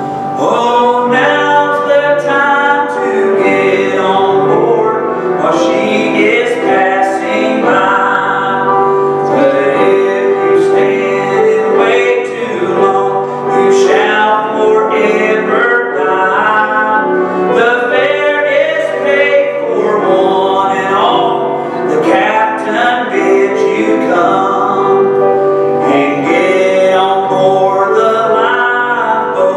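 A man singing a slow gospel song with vibrato on held notes, accompanied by a grand piano.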